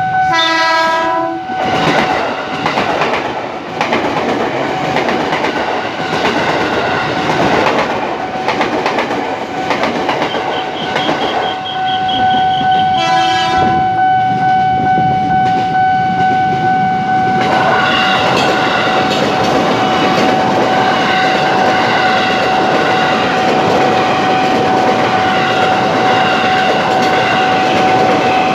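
KRL Commuter Line electric multiple units at a level crossing: a train horn sounds near the start and again about 13 seconds in, over the steady tone of the crossing alarm. From about 17 seconds in, a train passes close by with wheel clatter and running noise.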